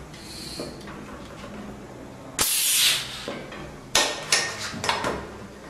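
Manual floor pump inflating a tubeless bicycle tyre: a loud rush of air about halfway through, followed by several sharp snaps.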